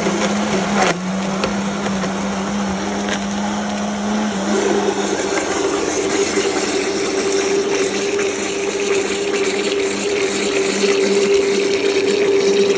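Countertop blender motor running at speed, churning a mango milkshake. Its steady motor tone steps up to a higher pitch about four and a half seconds in.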